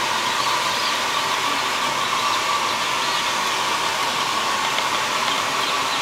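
Blower of an LPG brooding space heater running steadily, a continuous rush of air with a steady hum. Day-old chicks peep faintly through it.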